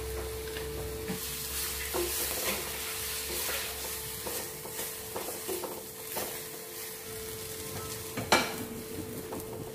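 Onion and tomato sizzling in oil in a pan as they are stirred for chutney, with the spatula scraping and tapping the pan now and then. The loudest knock comes about eight seconds in.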